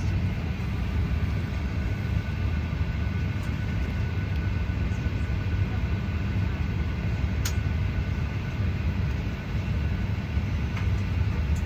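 Steady low hum and rush of a Boeing 737 airliner's cabin, with faint steady tones above it and a single sharp click about seven and a half seconds in.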